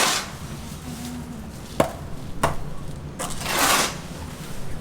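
A long scraping stroke and two sharp knocks, with another scrape right at the start.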